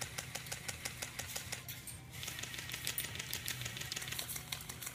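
Airsoft guns firing, a fast run of sharp clicks with a short break about two seconds in.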